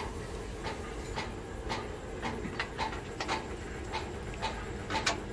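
Loose steel bolts and nuts clinking as a hand rummages through them in a round metal container: irregular sharp metallic clicks, a sharper pair near the end, over a steady low hum.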